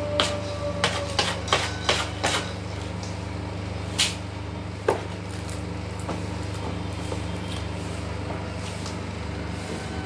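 Cat scratching and digging in granular cat litter in a plastic litter box: a quick run of sharp scrapes in the first two and a half seconds, then two more at about four and five seconds in. A steady low mechanical hum runs underneath.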